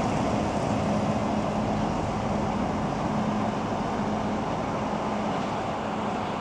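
Diesel locomotive engine running with a steady hum as the locomotive moves slowly away along the track, growing slowly quieter.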